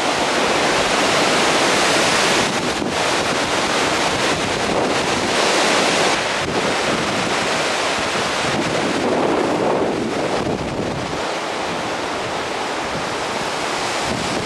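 Loud, steady rushing of tropical-storm wind and surf, with wind buffeting the microphone. The noise shifts abruptly a few times.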